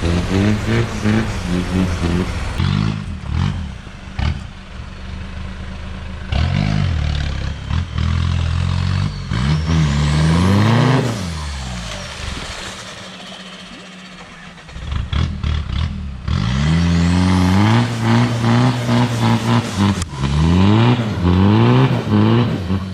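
Off-road 4x4's engine revving hard and easing off again and again, its pitch rising and falling in surges, with sharp knocks across it. It drops back for a few seconds about halfway through, then revs up again.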